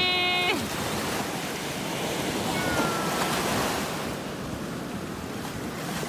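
Black Sea surf: small waves breaking and washing up over a sandy beach in a steady rush. A single high voice is held for about half a second at the very start.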